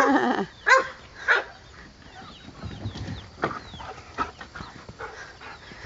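A dog yips a couple of times in the first second or so, while chickens cluck and chicks peep faintly in the pen.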